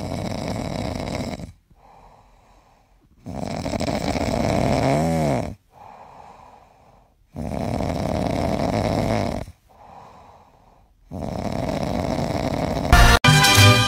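A sleeping dog snoring: four long snores about four seconds apart, with much quieter breaths between them.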